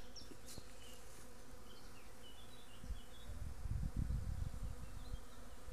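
Honeybees buzzing steadily around the hive: a swarm just moved into its new hive. A low rumble comes in about three seconds in and fades out about a second and a half later.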